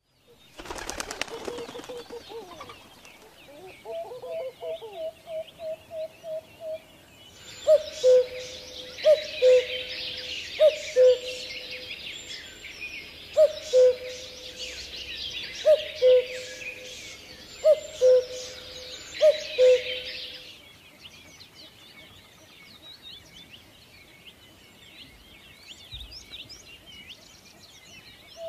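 Birdsong: a low two-note falling call, repeated about every second and a half, over a busy chorus of small birds chirping. The chirping fades out a little past the middle.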